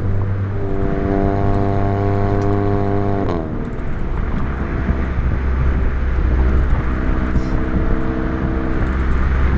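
Volkswagen Mk7 GTI's turbocharged four-cylinder, fitted with an aftermarket downpipe, running steadily under way. About three seconds in the revs drop quickly, and the engine then holds steady at the lower pitch, with tyre and road noise underneath.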